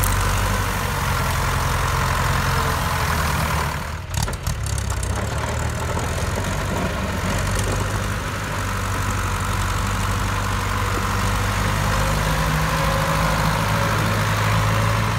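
Ford farm tractor engine running steadily under load as the tractor pushes through dry brush with its front blade, with a brief break in the sound about four seconds in.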